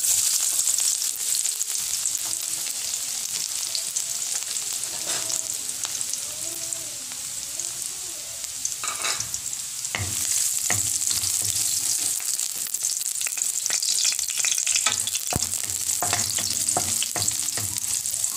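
Chopped garlic dropped into hot cooking oil in a wok, sizzling at once and frying steadily. From about halfway through, a wooden spatula stirs it, adding short clicks and scrapes against the pan.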